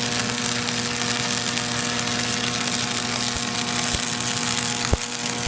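Stick-welding arc crackling and hissing steadily as the electrode burns down, with no hand on the rod, over a steady hum from the welding machine. A few sharp pops come near the end.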